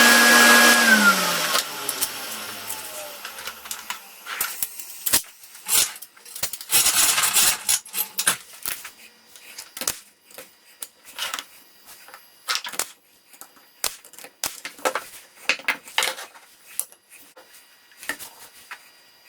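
A power tool's electric motor switched off and spinning down in the first second or two, its pitch falling away. It is followed by scattered clicks and knocks.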